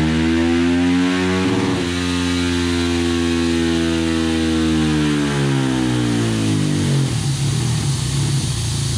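KTM 450 SMR's single-cylinder four-stroke engine through a DVR dual titanium exhaust, run hard on a dyno, with a brief stutter about a second and a half in. The pitch eases down from about five seconds in, and from about seven seconds the engine falls to an uneven, choppy running as the throttle is closed.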